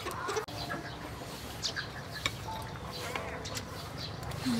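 A few light clicks of metal spoons against bowls during a meal, over faint bird calls and a steady low background.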